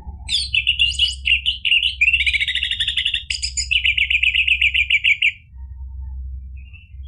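Orange-headed thrush singing a fast, dense run of trills and chattering notes for about five seconds, then breaking off, with only a few faint notes after.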